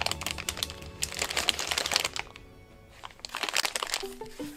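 Plastic gummy-candy pouches crinkling as they are handled, in two spells with a short lull between, over background music. Near the end a new light tune of short plucked notes begins.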